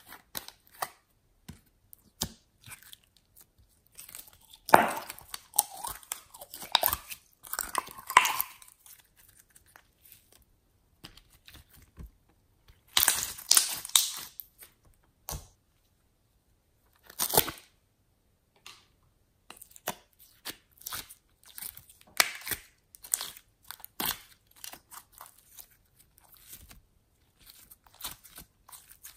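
Hands squeezing, squishing and stretching slime, making irregular sticky crackles, clicks and squelches that come in bursts, the busiest about five to eight seconds in and again around thirteen seconds.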